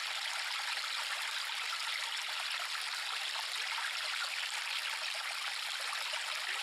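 River water running: a steady, even rush, bright and without any deep rumble.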